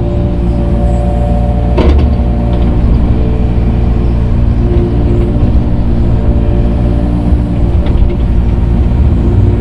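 Excavator's diesel engine running steadily as it grades dirt with a grading bucket, with a sharp clank about two seconds in.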